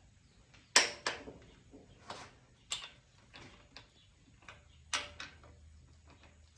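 Hand tools working on the Farmall C's cylinder head bolts: about eight irregular sharp metal clicks and clinks, the loudest about a second in.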